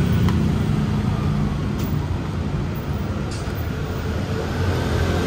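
Steady road traffic noise from passing vehicles, with a few faint clicks.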